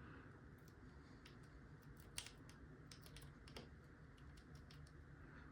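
Lock pick and tension wrench working inside a pin-tumbler lock: faint, irregular metallic clicks and ticks as pins are lifted, with a sharper click about two seconds in and another about three and a half seconds in.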